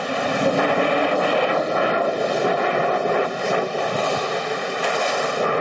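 Loud, steady rushing noise on a metro platform, picked up by a phone's microphone, with no clear voices in it.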